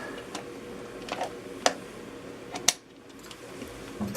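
Scattered small clicks and handling noises of fingers working a plug connector and its wires.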